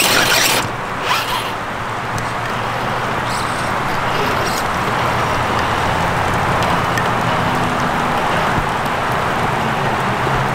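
An electric RC rock crawler's motor and gearbox whirring in short bursts as the truck crawls over wet rocks, over a steady rush of water.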